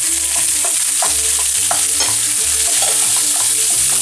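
Pancetta, porcini mushrooms and peas sizzling in hot olive oil in a non-stick frying pan, with a steady hiss, while a wooden spoon stirs them and scrapes against the pan several times.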